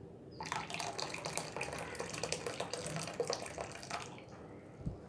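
Hot starchy rice-cooking water being poured from a pot into a steel bowl, splashing and bubbling for about three and a half seconds before it stops. A small knock follows near the end.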